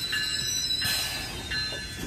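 Wheels of slow-rolling GO Transit bilevel passenger coaches squealing on the rails in thin, high tones that come and go as the train slows to a stop. A short hiss sounds a little under a second in.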